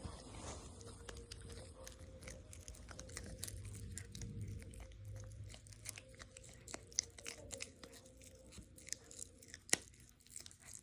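A pet chewing a crunchy treat: a long run of sharp, irregular crunches and bites, with one louder crunch near the end.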